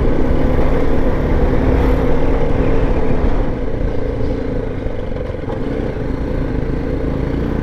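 BMW G 310 GS single-cylinder motorcycle engine running steadily under way, with an even rush of road and wind noise over it. It runs a little quieter for a few seconds in the middle as the bike slows for a bend.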